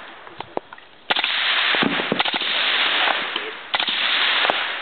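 Suppressed M-16 rifle firing rapid strings of shots. Sharp cracks come in quick succession from about a second in, and a second string starts near the end.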